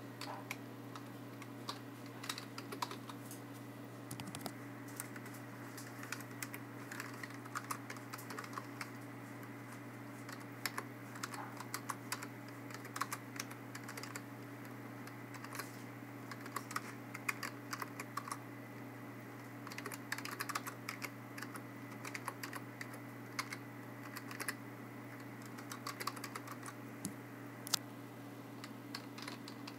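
Typing on a computer keyboard: irregular key clicks in short bursts with pauses, over a steady low hum.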